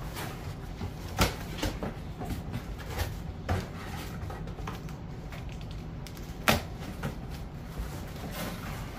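Large cardboard box being opened and handled: flaps folded back and the contents shifted, with several sharp knocks, the loudest about six and a half seconds in, over a steady low hum.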